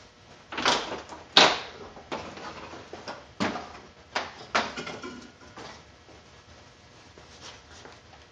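Fan shroud knocking and scraping against the engine fan and engine bay as it is lifted out: a string of sharp, irregular knocks and scrapes, loudest about a second and a half in, dying away after about six seconds.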